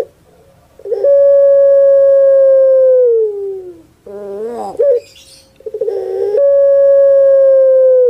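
Caged collared dove cooing twice. Each time it gives short rolling notes, then a long coo held steady for about two seconds that slides down in pitch at its end.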